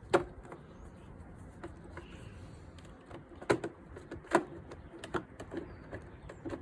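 Sharp plastic clicks and knocks from a Honda Ruckus scooter's plastic body cover being worked into place by hand: one loud knock just after the start, then a run of several more clicks in the second half.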